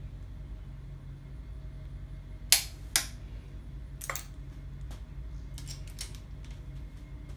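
Click-type torque wrench and socket on LS cylinder-head stud nuts, tightened in the 50 ft-lb stage of a three-step torque sequence: two sharp metallic clicks about half a second apart, a third a second later, then a few fainter ticks, over a steady low hum.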